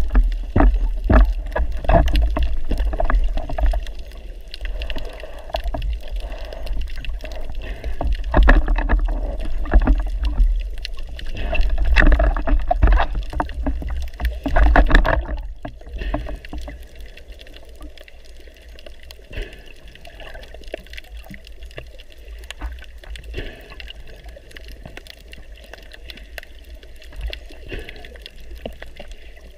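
Underwater sound of water moving against a camera housing: a heavy low rumble with many small knocks and clicks. It is busy and loud for the first half, then drops to a quieter wash with only occasional clicks after about 16 seconds.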